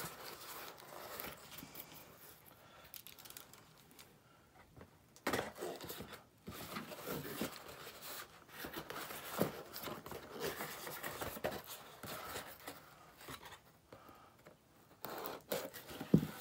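Scissors slitting the packing tape on a small cardboard box, with tape tearing and cardboard scraping and rustling in irregular bursts, broken by a couple of short pauses.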